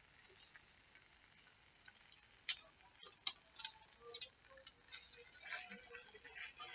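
A metal spatula clicking and scraping against an iron wok as noodles are stirred and fried, in a string of sharp, irregular ticks that begin about two seconds in, the loudest a little past three seconds.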